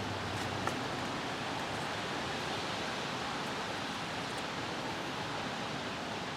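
Steady, even hiss of background noise, with a faint click under a second in.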